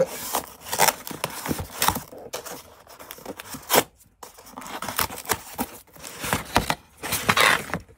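Corrugated cardboard shipping box being torn open by its tear strip: irregular ripping, scraping and rustling of cardboard, with one sharp knock a little before halfway through.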